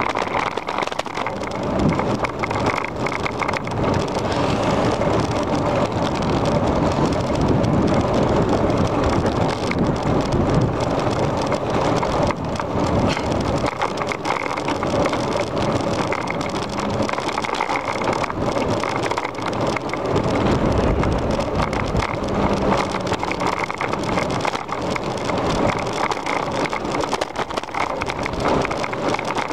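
Bicycle riding along a paved path: wind over the microphone with the rumble and rattle of the tyres and bike, a steady rough noise full of small clicks.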